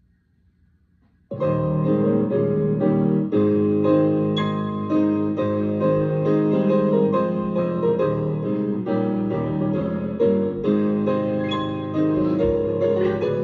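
Piano music, starting abruptly about a second in after near silence, with chords struck at a steady pace.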